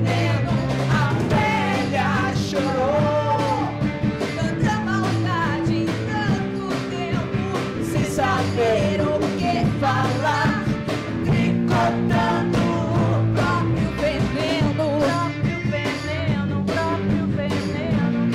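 A rock band playing live, with drums keeping an even beat under a lead line that bends up and down in pitch.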